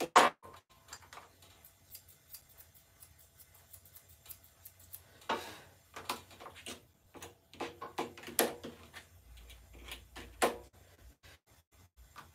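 Grooming scissors snipping in quick, irregular clicks as a Persian cat's long coat is trimmed, with a few louder knocks of tools against the grooming table.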